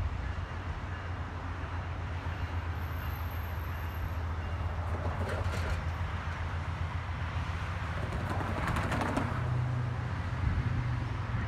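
Steady low rumble of vehicles at a road crossing, with a vehicle going past about five seconds in and a second, louder swell of passing noise around nine seconds.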